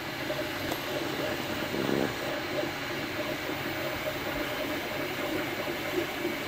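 MakerBot Replicator desktop 3D printer running mid-print: a steady mechanical hum and whir from its motors, with a brief stronger whir about two seconds in.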